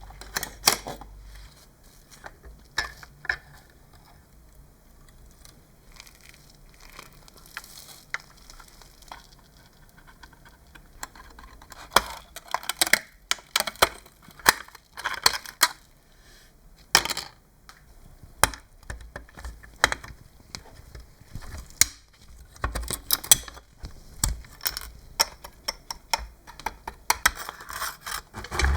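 Small hard parts of a diecast scale model pickup truck clicking and clinking as they are handled and worked on with tools: irregular sharp taps, sparse at first and coming thicker in the second half.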